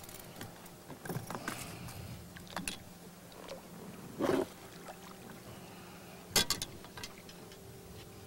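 Scattered clicks, knocks and small water sounds from fishing tackle being handled on an inflatable boat while a hooked fish is drawn in, with a dull thump about four seconds in and a sharp knock about six seconds in.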